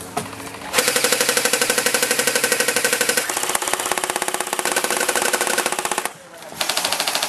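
Airsoft electric gun firing on full auto: a long burst of rapid, evenly spaced shots with the whine of its motor and gearbox, a short break about six seconds in, then a second burst.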